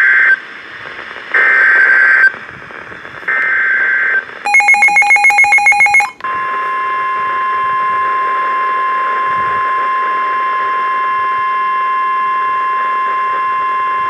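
Emergency Alert System warning on a Midland NOAA weather radio's speaker: three short screeching bursts of SAME digital header data, a second and a half of rapid beeping, then the steady 1050 Hz weather-radio warning alarm tone from about six seconds in. The alarm signals a severe thunderstorm warning.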